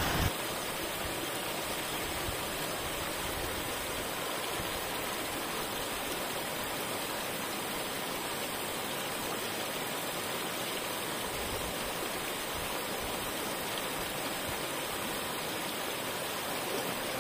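Waterfall cascade: water rushing steadily over rock into a pool, an even unbroken hiss.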